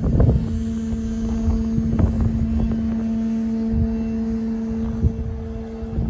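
A Volantex P-51 Mustang RC plane's small electric motor and propeller humming at a steady pitch, with wind rumbling on the microphone underneath.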